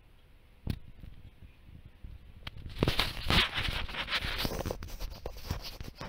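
A single knock, then a stretch of rustling, scraping and crackling with many small clicks from about three seconds in: equipment being handled and moved in a ceiling void.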